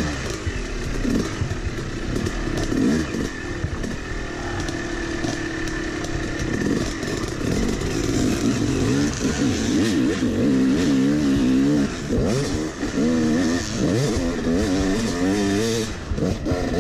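250cc two-stroke Yamaha dirt bike engine running on a trail ride, its pitch rising and falling over and over as the throttle is worked, with the revving most frequent in the second half. Rattles and scrapes from the bike are mixed in.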